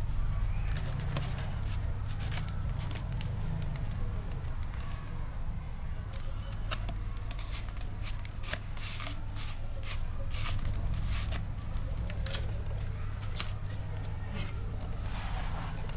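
Cardboard pages and pull tabs of a pull-the-tab board book being handled: a run of light clicks and paper rustles, busiest in the middle, over a steady low hum.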